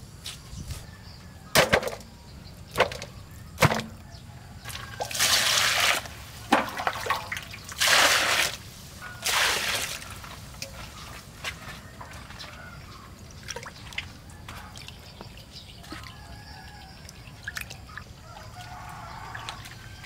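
Water splashing and sloshing in three short bursts, each about a second long, after a few sharp knocks in the first seconds; smaller drips and clicks follow.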